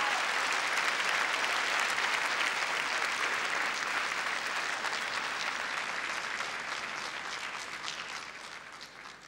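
Audience applauding. The applause thins to separate claps and dies away near the end.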